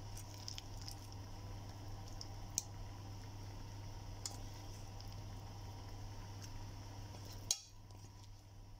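Marinated paneer pieces dropped with a spoon into thick tikka masala gravy: soft wet squishes and a few sharp clicks of the utensil against the pan, over a steady low hum. The loudest click comes about seven and a half seconds in, after which the sound is quieter.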